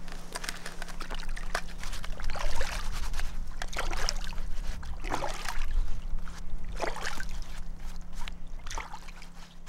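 River water splashing and sloshing in irregular swishes, roughly one a second, over a steady low hum.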